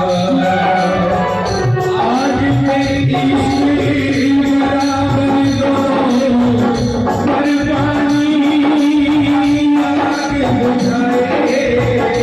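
Live Hindu devotional bhajan music: a long held melody line over a hand-drum beat, with jingling percussion keeping an even rhythm.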